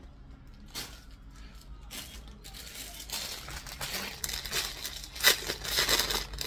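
Clothes and their plastic packaging rustling and crinkling as garments are handled. It starts faint, grows from about halfway through, and has one sharp crackle about five seconds in.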